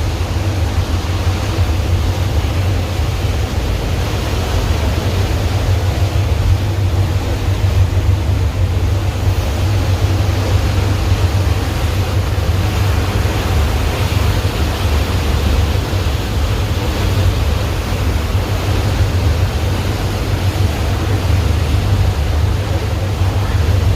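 Boat engine running, a steady loud low drone with a constant hiss above it.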